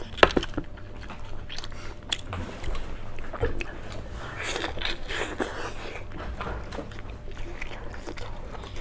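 Close-miked eating sounds: biting into a soft bread bun and chewing it, with a few sharp clicks just after the start.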